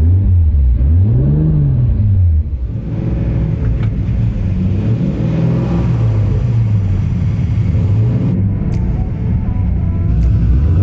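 The engines of a 5.7-litre LS-powered Pontiac Trans Am WS6 and a 3-litre 2JZ Toyota Supra running and being revved at a drag strip start line before a heads-up race. The revs rise and fall twice, and the sound changes abruptly as the view switches between the cars.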